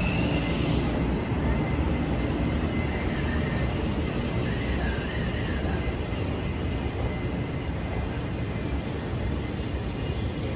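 Fu-Hsing passenger coaches rolling past at low speed, a steady rumble of steel wheels on rail that slowly gets quieter as the train pulls away.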